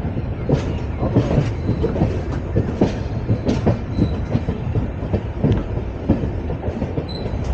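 Cholan Superfast Express passenger train running on the rails: a steady rumble with irregular clacks and knocks of the wheels over rail joints, and a faint thin squeal briefly about four seconds in and again near the end.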